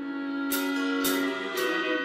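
Instrumental music: held notes with a bright struck accent about every half second.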